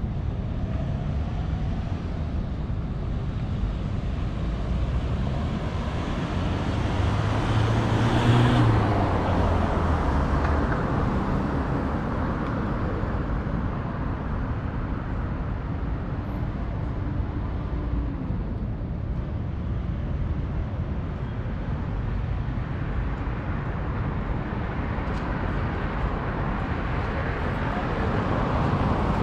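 City street traffic: a steady hum of passing cars, with one vehicle passing close and loudest about eight seconds in. The traffic grows louder again near the end.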